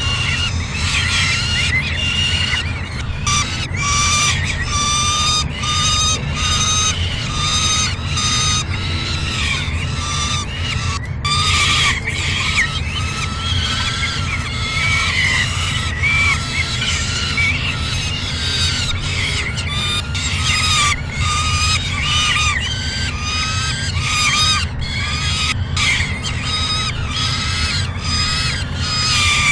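Young falcons in the nest giving harsh, squealing begging calls over and over, about one to two a second, with a brief pause about a third of the way in. A steady low hum runs underneath.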